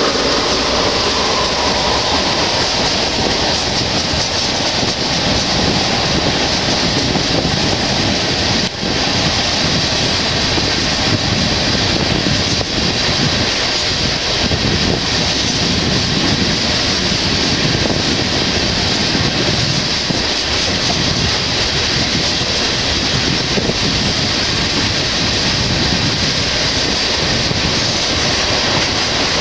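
Freight train of tank cars rolling past at speed: a steady, loud rolling rumble of steel wheels on the rails.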